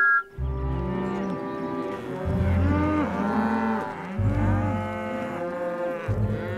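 A herd of cartoon cows mooing, several long moos overlapping and bending in pitch.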